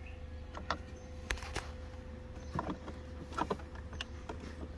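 Soft clicks and taps as fingers press the small A and B push-buttons on an AEM Tru-Boost X boost gauge, several scattered over a few seconds, over a low steady hum.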